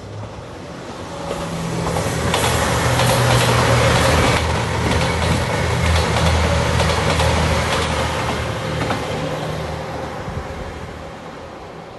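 JR Shikoku 2700 series diesel multiple unit passing at speed: steady diesel engine drone with a quick run of wheel clacks over the rail joints. It swells to a peak a few seconds in and fades away toward the end.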